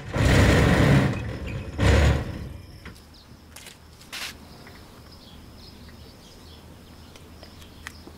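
Large sliding metal gate rattling and scraping along its rail: a harsh burst about a second long, then a shorter one about two seconds in, followed by a low steady hum with a few faint ticks.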